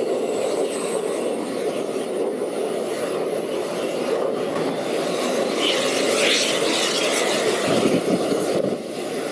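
Twin-engine military jet's engines running steadily at idle: a steady jet rush with a high turbine whine over it.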